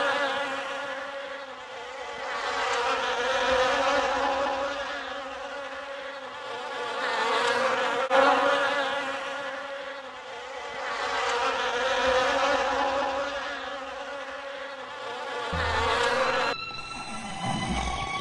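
A person snoring: a buzzy, rasping snore that swells and fades in slow, even breathing cycles about four seconds apart. It cuts off suddenly near the end, and music with bowed strings begins.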